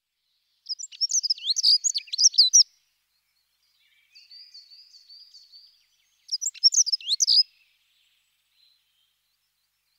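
Dunnock singing: two quick, high warbling song phrases, the first about two seconds long and the second shorter, with a fainter, thinner warble between them. The phrases end without the closing trill of a wren's song.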